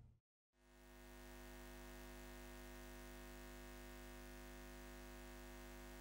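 Near silence: a faint, steady hum fades in after a brief dead gap, holds unchanged and fades out near the end.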